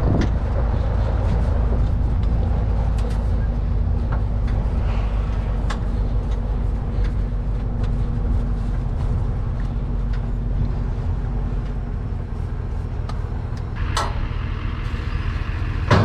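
Engine of an open-sided tour truck running steadily as it drives, heard from the bench seats in its open back, with a low hum and scattered light rattles and clicks. One sharp knock about fourteen seconds in.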